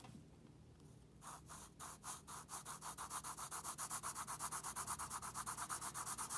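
Graphite pencil shading on paper: quick back-and-forth strokes scratching in a steady rhythm of about five a second, starting about a second in, laying down dark shading along the edge of a drawn cylinder.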